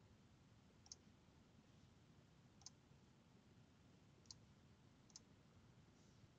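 Near silence with four faint, sharp computer mouse clicks, about one to two seconds apart, as folders and then a file are selected in a file-open dialog.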